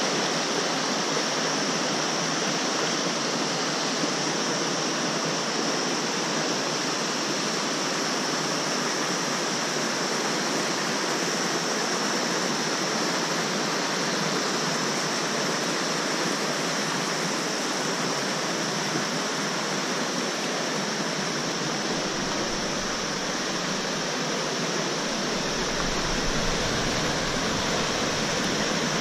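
Fast mountain river running over boulders in white-water rapids: a steady, even rush of water.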